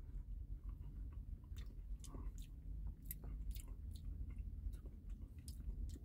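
Faint chewing of a mouthful of soft-serve ice cream with soft cinnamon-bun dough pieces in it, with a scatter of small mouth clicks over a low steady hum.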